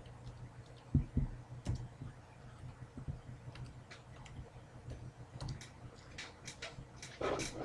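Scattered light clicks of typing on a computer keyboard as team names are entered into a list, growing busier near the end.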